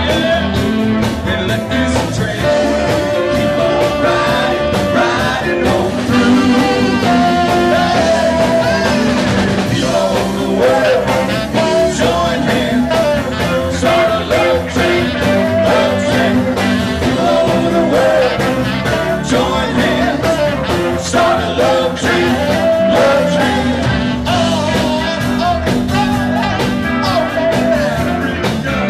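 Live band playing with a man singing lead: electric guitar, bass and drum kit keeping a steady beat, with hand drums on congas.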